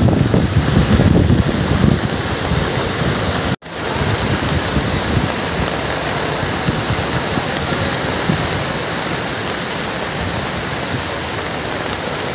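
Steady rush of water, with wind buffeting the microphone over the first two seconds. The sound cuts out for an instant about three and a half seconds in.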